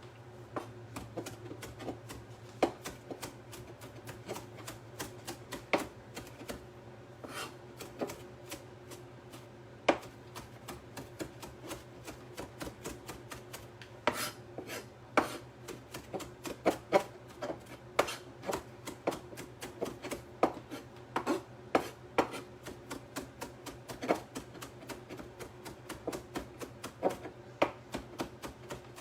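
Kitchen knife mincing damp cilantro on a cutting board: a long run of irregular taps of the blade on the board, with quick bursts of strokes, over a steady low hum.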